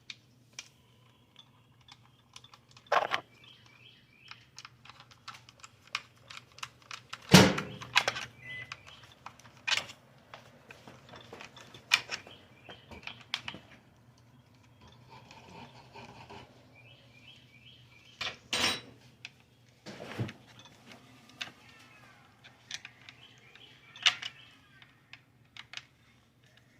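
Scattered clicks, knocks and clatter of tools and plumbing parts being handled while a garbage disposal's drain fittings are put on and tightened, with one loud knock about seven seconds in. Faint bird chirps come and go behind it.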